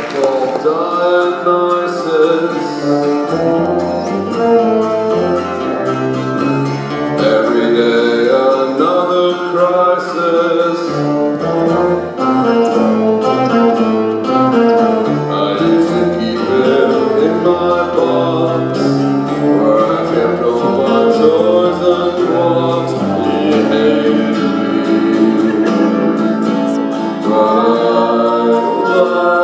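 A band playing a song live, with a singer over the instruments.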